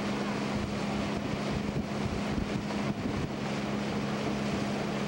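Motorboat engine running steadily under way, a constant low drone beneath rushing wind and water noise on the camcorder microphone.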